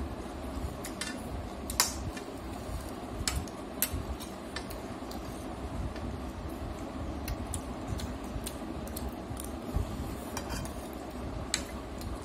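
Metal spoon clinking and scraping against a plate while food is scooped up, a handful of sharp, irregular clinks over a steady low background hum.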